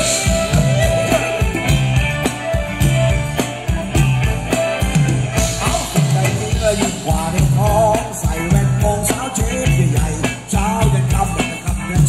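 Live band playing upbeat Thai ramwong dance music, with a steady drum and bass beat, electric guitar and keyboard, and a singer.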